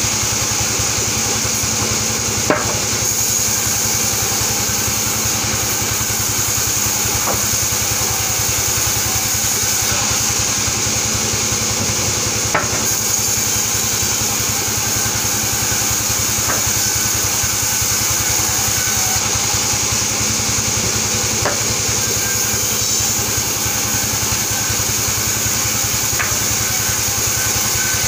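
Vertical band saw mill running steadily, a continuous mechanical drone, with a couple of sharp knocks about two and a half seconds and twelve seconds in.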